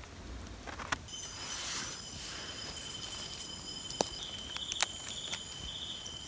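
Night insects trilling steadily, starting about a second in, with a second pulsing chirp joining partway through. A few sharp clicks and light rustles of hands working in leaf litter are heard.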